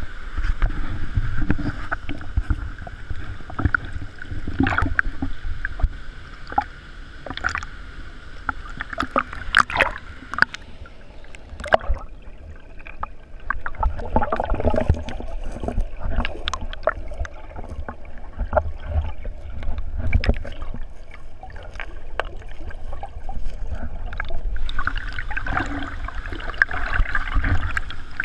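Water sloshing and splashing against a camera at the surface of a river pool, with many sharp slaps, over the steady rush of a waterfall. About twelve seconds in the sound turns dull and muffled as the camera goes under water, and the waterfall hiss returns near the end when it surfaces.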